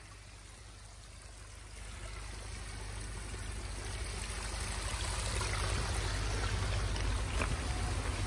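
Water trickling and splashing over small rock spillways in a man-made pond stream, growing louder over the first few seconds, with a low rumble beneath.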